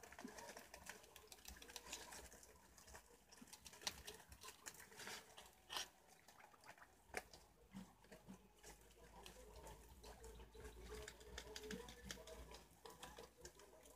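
Preás (wild cavies) nibbling and moving among leaves and vegetable scraps: faint, scattered crunching clicks and leaf rustles, with a few sharper clicks.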